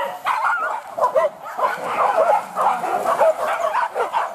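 Hunting dogs yelping and baying in rapid, overlapping high yelps, giving tongue on the chase of wild boar.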